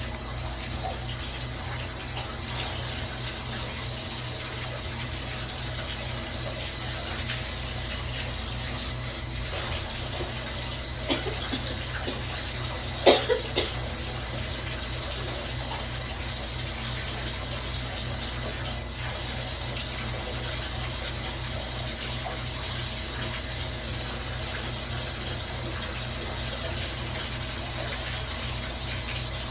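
Bath tap running steadily into a tub. A few short, louder sounds break through a little before halfway, the sharpest one about thirteen seconds in.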